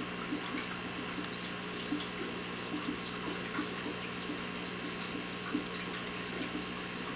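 Aquarium water trickling and splashing with a steady pump hum, with faint irregular clicks scattered through it: an MBU puffer crunching snail shells.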